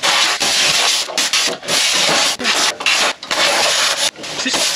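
Compressed-air tool on a shop air hose, worked against the underside of a truck, hissing and scraping in short bursts that stop and start about eight times.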